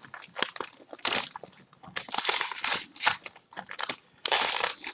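Foil wrapper of a thick football-card pack crinkling and crackling as it is torn and peeled open by hand, a quick run of sharp crackles, loudest near the end.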